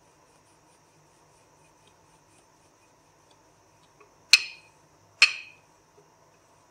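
A wooden rolling pin working a block of puff pastry dough on a hard worktop, giving two sharp clacks about a second apart, a little over four seconds in, over a faint steady hum.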